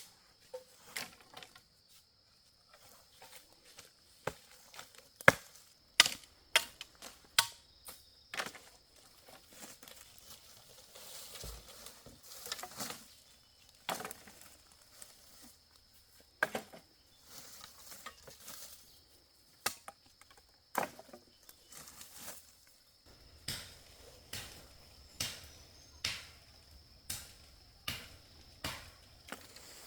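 Firewood being chopped with a blade: sharp strikes, irregular at first and then about one a second near the end. A steady high insect drone runs underneath.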